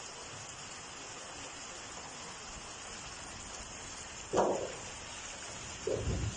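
Steady wind noise with rustling foliage. About four seconds in, a brief louder sound like a short voice stands out, and another short one comes near the end.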